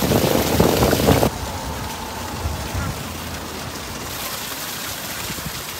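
Steady rush of splashing water, loud for about the first second and then dropping suddenly to a quieter hiss.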